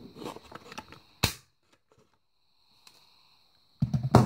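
Paper rustling, then a handheld craft paper punch snapping once, sharp and loud. Near the end comes a quick cluster of knocks and thumps, the loudest sounds of all.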